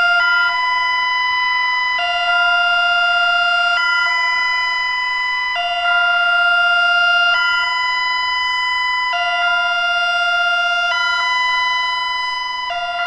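Bulgarian national warning siren sounding its alert signal in a technical test: a loud, steady two-tone wail that steps abruptly between a lower and a higher pitch about every two seconds.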